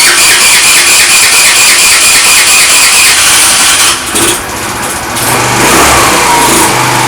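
Electric starter cranking a Fada Wind scooter engine with a fast, rhythmic whir for about four seconds; then the engine catches and runs briefly on a nearly empty fuel tank.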